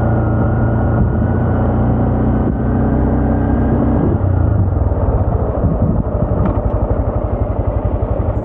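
Honda Grom's single-cylinder 125cc engine running at steady throttle, then easing off about four seconds in and dropping to a low, rapidly pulsing beat at low revs.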